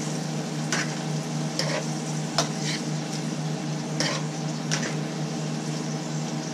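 Vegetables and ground beef sizzling in oil in a nonstick skillet as they are stir-fried, with a wooden spoon and a fork scraping and clicking against the pan about once a second.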